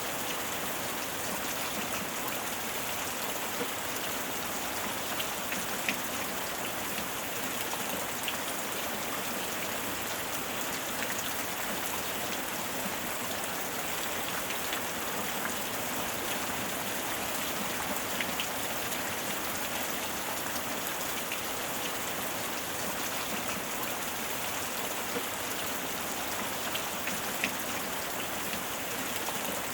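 Steady rain falling in a rainstorm, an even hiss with a few louder single drop taps scattered through it.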